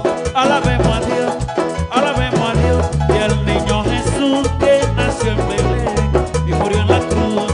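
Live band playing a Latin dance song, acoustic guitars, bass and percussion, with a vocalist singing.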